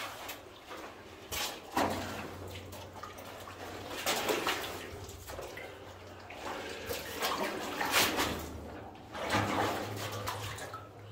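Feet wading and splashing through shallow water on a rocky mine-tunnel floor, an uneven surge of water every second or two.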